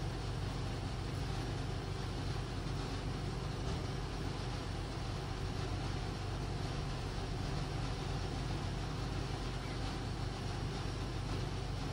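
Steady low mechanical hum under a hiss, with no distinct knocks or clicks.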